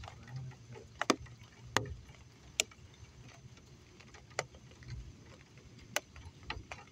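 Raindrops or drips tapping on a hard surface close by: about five sharp, irregular taps over a low steady rumble.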